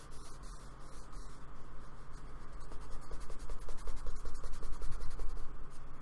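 Paintbrush scrubbing acrylic paint onto a black card sketchbook page in rapid, scratchy back-and-forth strokes, growing louder about two seconds in.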